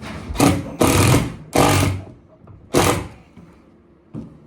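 Power drill running in four short bursts during the first three seconds, each about a quarter to half a second long, as it works on the door closer fitting.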